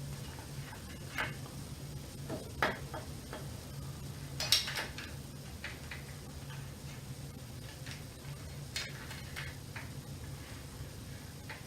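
Irregular small clicks and taps from handling electrical wires and plastic plug connectors on an e-bike's motor controller, the loudest a short rattle about four and a half seconds in, over a steady low hum.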